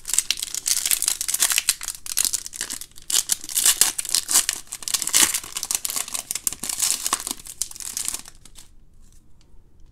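Foil trading-card pack wrapper being torn open and crinkled by hand: a dense crackling and tearing that stops about eight seconds in, leaving only a few faint ticks of card handling.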